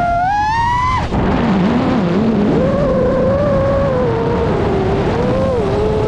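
FPV freestyle quadcopter's brushless motors and propellers whining over a rush of air, the pitch climbing with throttle to about a second in, dropping sharply, then wavering up and down as the throttle changes.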